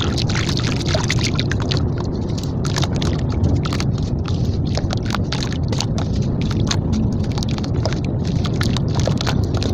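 Water-soaked red sand-cement slab being crumbled by the fingers over a steel bowl of water: many small crackles and crunches as bits of the wet edge break off, over a steady low sound of water sloshing in the bowl.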